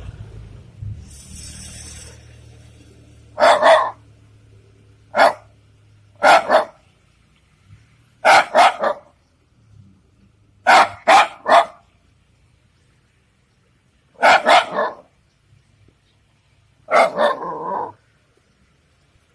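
Shiba Inu barking at a cat in short bursts of one to three barks, several seconds apart, with a longer drawn-out bark near the end.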